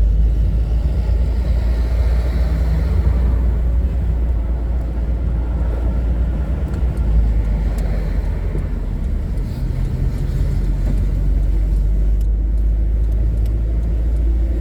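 Strong gusty east wind buffeting a phone's microphone, a steady low rumble, over road traffic passing on a nearby highway.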